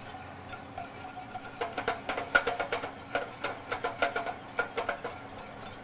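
Wire whisk clicking and scraping against a metal saucepan as butter is whisked into a thick pan sauce. Rapid, irregular ticks that grow busier and louder about a second and a half in.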